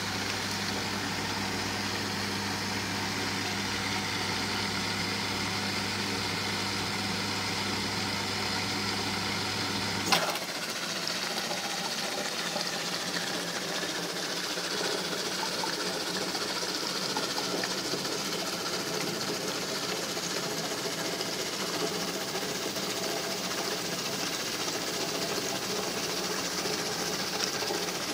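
Siemens dishwasher running: a steady low hum stops with a click about ten seconds in, and a steady mechanical rattling whir carries on after it.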